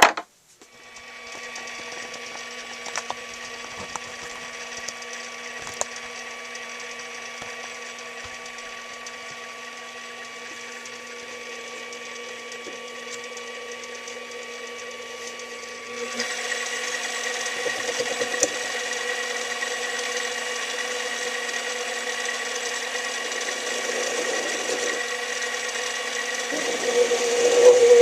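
Small hobby metal lathe starting up and running with a steady motor whine while the leftover cutoff nub on the part is cleaned up. The sound steps up louder about halfway through and grows louder again near the end.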